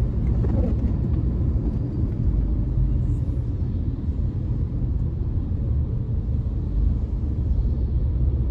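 Steady low rumble of a car driving on a wet road, heard from inside the cabin: engine and tyre noise with no clear rhythm.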